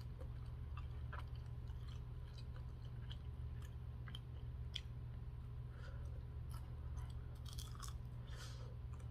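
Close-up chewing and crunching of crispy fried chicken wings, with scattered small crackles and mouth sounds over a steady low hum.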